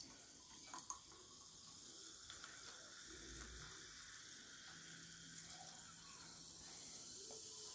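Sprite poured from a plastic bottle over ice into a glass, then into a second glass: a faint, steady pouring and fizzing hiss, with a small clink or two about a second in.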